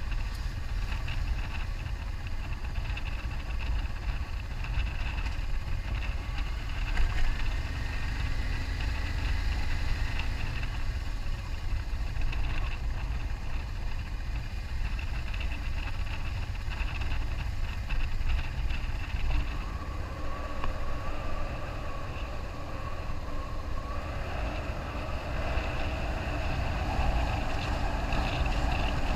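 A 2001 BMW F650GS Dakar motorcycle's single-cylinder engine running on the move under heavy wind noise and low rumble on the camera microphone.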